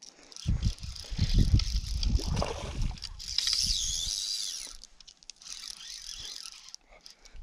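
Fly reel's click-and-pawl ratchet clicking as line runs on and off the spool while a tiger trout is played, loudest and densest around the middle, with low rumbling handling noise in the first few seconds.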